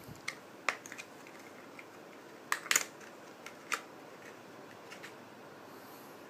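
Light plastic clicks and snaps from handling a micro RC helicopter as the shipping blade holder and the snap-on canopy are pulled off, with the loudest cluster of clicks a little under three seconds in.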